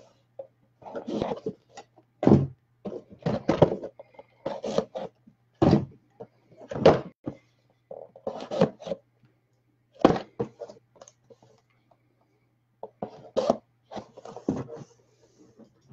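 Cardboard trading-card boxes being handled and set down on a table: a string of irregular thunks and knocks, with a faint steady low hum underneath.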